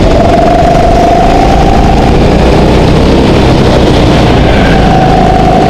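Go-kart engine heard onboard, running loud at high revs: its pitch climbs over the first two seconds, dips, and climbs again near the end as the kart accelerates between corners.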